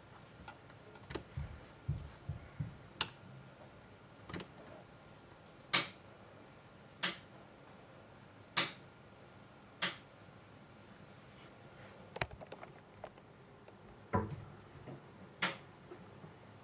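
A series of short, sharp clicks at irregular intervals of about one to two seconds, some much louder than others, over faint room noise.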